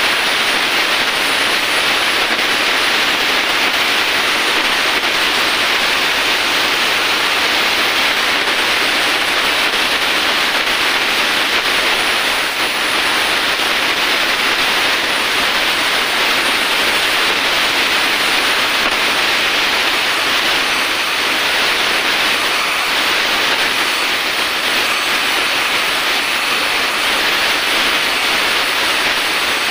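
Oxy-acetylene carbide-welding torch hissing steadily as its flame heats an aluminium motorcycle crankcase to build up a broken oil drain bolt hole.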